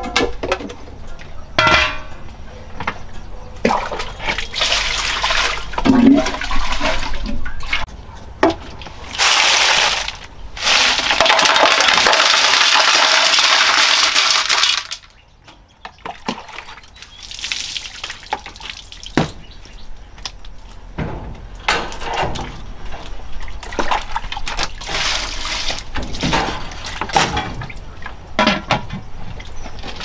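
Washing up with water: metal pots, lids and dishes clank and knock as they are handled, and water is poured or runs in a loud rush for about five seconds in the middle.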